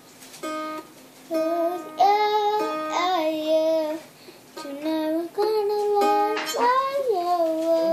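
A girl singing a slow song while strumming chords on a small pink acoustic guitar, holding some notes with a slight waver and pausing briefly between phrases.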